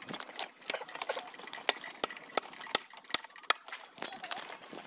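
Sharp metallic clinks and knocks of steel bars working the clip fastenings on a railway rail, irregular, about three a second.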